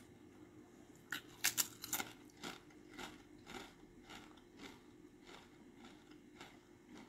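Someone biting into something crunchy close to the microphone, then chewing it. There are a few sharp crunches about a second and a half in, then chews about twice a second that slowly fade.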